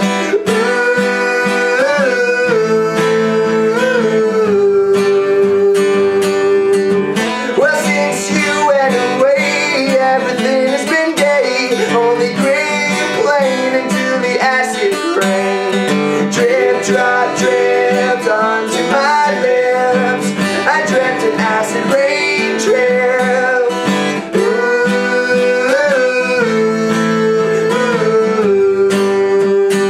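Steel-string acoustic guitar strummed in a steady rhythm of chords, with a voice singing a wordless melody over it and holding some long notes.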